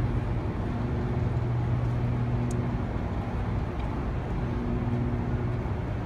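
Steady electrical hum of high-voltage power transformers at a hydroelectric powerhouse: a low drone with a couple of fainter higher overtones, over a haze of background noise.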